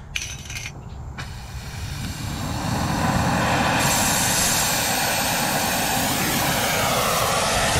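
Oxy-acetylene brazing torch burning. The flame's rush swells over the first few seconds as the oxygen is opened and the lazy yellow flame is trimmed to a short, sharp blue one, then holds as a steady loud rush.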